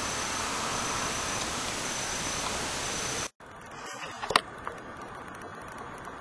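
Steady hiss from a Canon PowerShot ELPH 310 HS's built-in microphone, with no speech, cutting off abruptly a little over three seconds in. After a moment of silence comes a quieter background with one sharp click and a few faint ticks.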